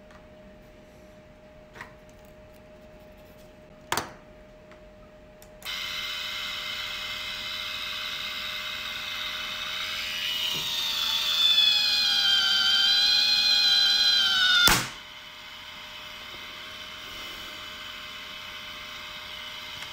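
After a couple of clicks, a 12 V 20 RPM DC gear motor starts with a steady whine, winding fishing line onto a wooden spool. From about halfway the whine grows louder and its pitch wavers as the line takes up tension. Then there is a sharp snap as the line breaks at about 29 lbs, and the motor keeps running more quietly.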